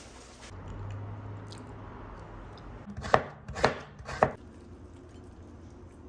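Food being chopped: three sharp chops about half a second apart, a little after halfway through, over a faint low hum.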